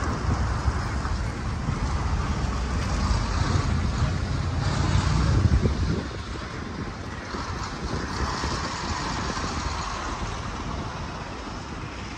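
City road traffic: cars passing along the road. There is a heavy low rumble that drops away about six seconds in, leaving a steadier, quieter traffic hiss.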